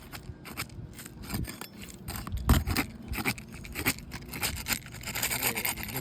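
A flat bar scraper prying and scraping under roof shingles to break their seal, in a string of short scrapes and clicks, with a denser rasping stretch near the end. A low thump comes about two and a half seconds in.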